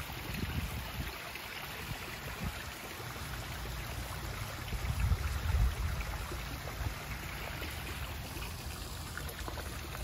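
Backyard pond waterfall running, a steady trickling and splashing of water, with some low rumbling about five seconds in.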